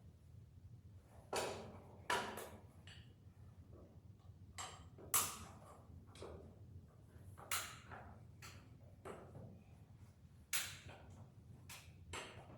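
Sharp clanks at irregular intervals, about one every second or two, each ringing briefly, over a faint low rumble.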